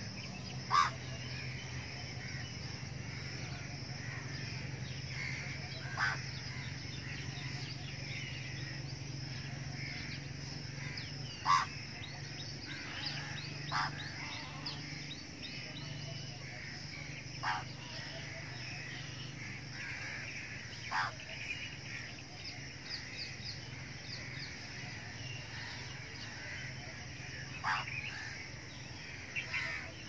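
Outdoor bird chorus: many birds chirping and twittering without a break, with a short, loud, harsh bird call every few seconds, about eight in all. A low steady hum sits underneath.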